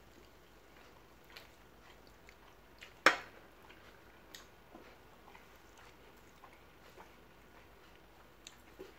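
Quiet eating sounds close to the microphone: soft chewing and small scattered clicks, with one sharp, much louder click about three seconds in.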